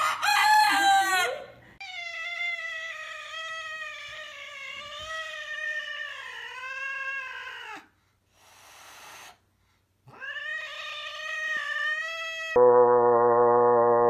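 A chicken gives a short loud call. Then a cat gives a long meow whose pitch wavers, held for about six seconds, and after a short pause a second, shorter one. Near the end a frog takes over with a steady, unbroken scream.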